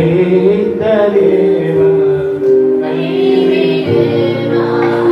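Singing of a church worship song, voices holding long notes over musical accompaniment.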